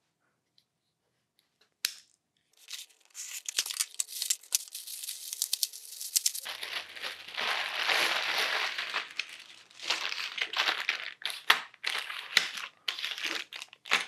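A cardboard shipping box is opened with tearing and crackling. About halfway through, a large clear plastic bag crinkles steadily as it is handled. Near the end come short rustles and clicks as smaller zip-lock bags of plastic keycaps are set down.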